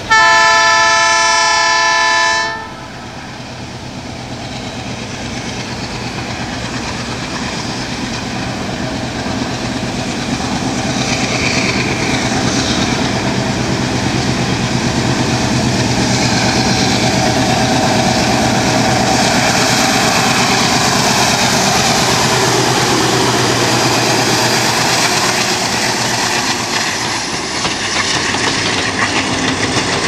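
ALCO WDM-2 diesel locomotive's 16-cylinder engine working hard with the throttle wide open under a 21-coach load, chugging louder as it approaches and passes. A loud multi-tone horn sounds for about two and a half seconds at the start. Near the end the engine fades and the coaches roll by with a rhythmic clickety-clack of wheels over rail joints.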